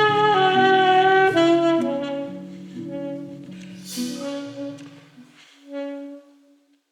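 Alto saxophone playing long held notes in a free jazz improvisation, the line stepping between pitches and dying away, with a brief cymbal-like wash about four seconds in. The music stops shortly before the end.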